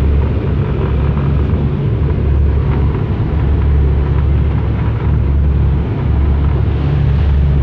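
A passenger boat's engines drone steadily at cruising speed under a continuous rush of wind and water from the hull cutting through rough sea.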